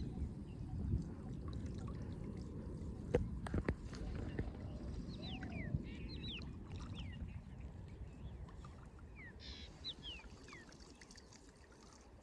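Water sloshing and splashing, fading away over several seconds, with two sharp knocks about three seconds in. Several short, quickly falling bird chirps in the second half.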